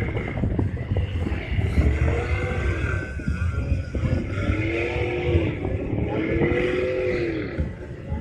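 An off-road truck's engine revs again and again, its pitch climbing and then dropping about four times, over a steady low rumble.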